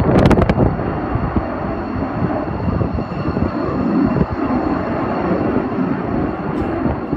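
Jet noise of a JAS 39 Gripen fighter's single Volvo RM12 turbofan flying past, a loud steady rushing roar that eases slightly towards the end.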